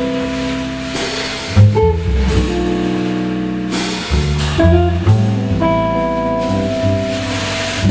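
Live jazz trio playing an instrumental piece, with guitar lines over a moving low line and drum kit cymbals.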